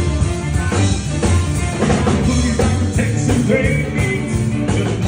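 Live band playing an upbeat rock-and-roll number with a drum kit, during a sound check.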